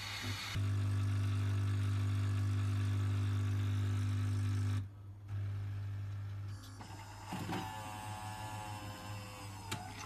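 Siemens EQ.9 s300 fully automatic coffee machine working through a latte macchiato. A brief hiss of milk frothing stops, and the machine's motor then runs with a loud, steady hum for about four seconds. After a short pause come quieter mechanical whirring with falling tones and a sharp click near the end.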